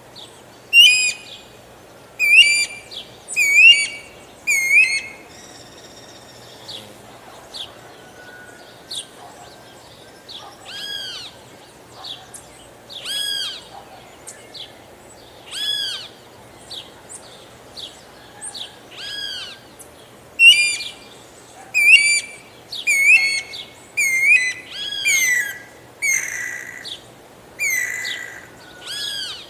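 Guira cuckoo calling: a long series of arched, ringing notes, loud and closely spaced in the first five seconds and again from about twenty seconds in, softer and more spaced out in between.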